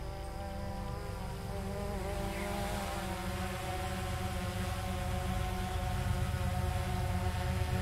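Diesel locomotives pulling a train out of a tunnel, their engines a steady droning hum with a low rumble that grows steadily louder as they approach.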